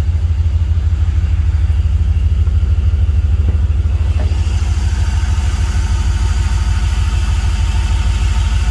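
Holden SS ute engine idling steadily with an even, low pulsing rumble, running for the first time in over eight years on a new fuel pump and filter. A fainter, higher whine joins about halfway through.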